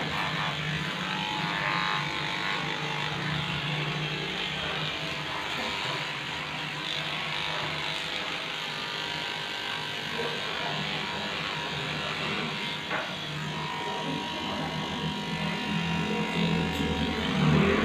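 Electric dog grooming clippers running steadily as they shave through a Lhasa Apso's matted coat, getting louder near the end.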